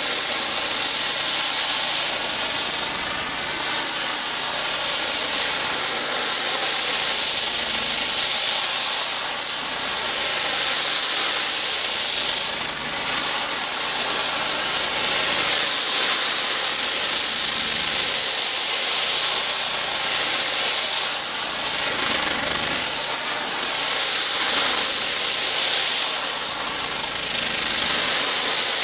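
Pressure washer wand spraying a fan-shaped jet of water onto a cover to rinse off the cleaner: a loud, steady hiss of spray.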